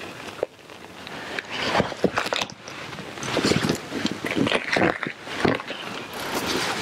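Pronghorn buck snorting: a run of short, irregular, forceful blasts of breath, several a second, starting about a second and a half in.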